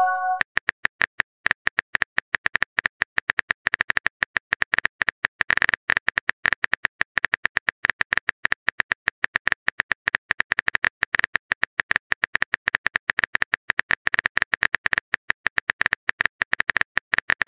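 Phone keyboard typing sound effect: a rapid, even string of short clicks as a text message is typed out.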